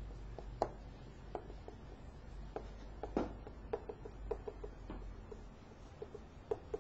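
Writing on a classroom board: a string of short, irregular taps and brief squeaks from the writing tool as a sentence is written out.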